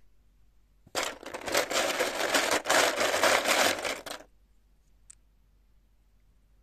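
Loose plastic LEGO minifigures clattering as a hand rummages through a plastic bin of them, a dense rattle of many small clicks for about three seconds, then one small click.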